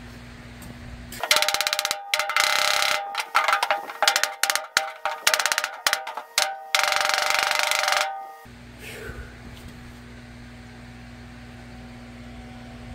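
Rapid hammering on the sheet-steel roof panel of a 1948 Willys truck, the panel ringing under the blows, in loud bursts that last about seven seconds and stop suddenly, while the crease in the roof is worked out.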